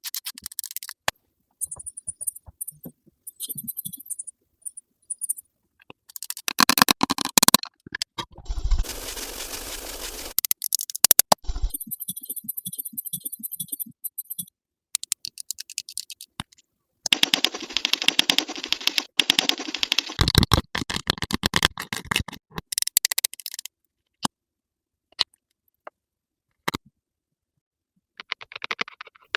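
A cut-together series of ASMR makeup sound effects: short stretches of scratchy, hissing brushing and rapid clicking and tapping, broken by abrupt silent gaps.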